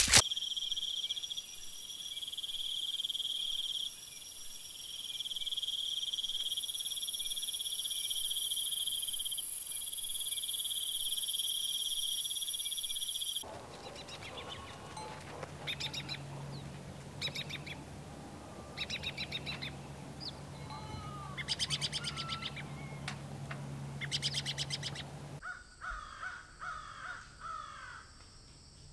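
Three nature recordings in turn. First a steady, high-pitched drone with a hiss above it, pausing briefly twice. Then birds chirping in short repeated bursts over a low steady hum, and near the end crows cawing.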